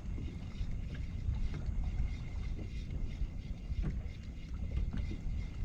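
Wind rumbling on the microphone over water lapping against a small boat's hull, with a few faint knocks scattered through.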